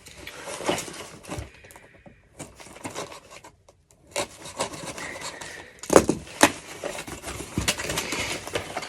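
Flat-pack cabinet parts and their packaging being unpacked and handled: rubbing and scraping against wood and board, with scattered clicks and knocks. The loudest knock comes about six seconds in.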